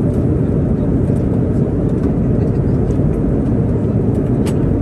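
Airliner cabin noise in flight: a steady low drone. A light click sounds near the end.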